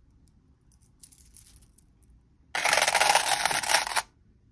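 Heavy 13 mm 14k rose-gold Cuban link chain, about 261 grams, piled onto the stainless steel platform of a digital scale. For about a second and a half its links clatter and clink as they heap up, then stop sharply. A few faint clinks of the links come about a second in.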